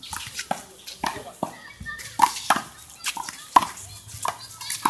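A rally of one-wall handball: a small rubber ball slapped by hand, smacking off the concrete wall and bouncing on the asphalt court. It is a quick string of sharp slaps, roughly two a second.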